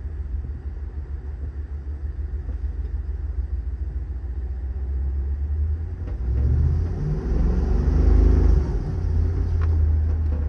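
Ford 7.3-litre gas V8 of a heavy service truck on the move: a steady low rumble, then about six seconds in the engine note rises and grows louder as the truck accelerates, loudest around eight seconds before settling.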